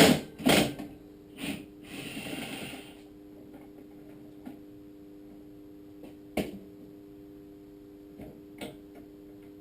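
Impact wrench with a 19mm socket hammering loose the bottom bolt of a KTM 990 Adventure WP fork leg: loud short bursts in the first second, a shorter buzz about two seconds in, then a few light clicks of metal parts being handled.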